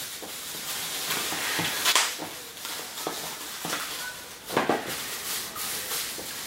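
Crinkling and crackling of plastic packaging with several sharp clicks, as small clear plastic sauce cups are handled.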